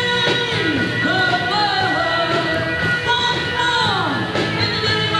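High school rock combo playing live rock music, with sustained notes that slide down in pitch several times.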